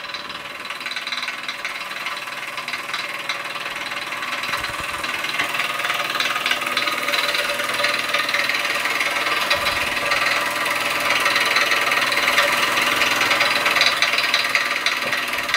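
Mamod ME1 toy marine steam engine running steadily on steam, a rapid continuous clatter of its small piston turning the propeller shaft, gradually getting louder. Steam hisses from a leaking safety valve, which leaves the engine running on reduced steam pressure.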